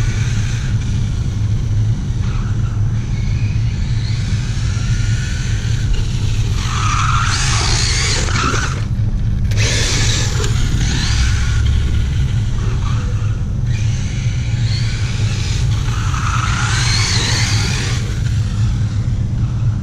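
ZD Racing 1/8 short-course RC truck with a brushless motor on a 4S pack, driving and sliding on textured concrete. The motor whine and tyre scrubbing rise in several surges over a steady low rumble.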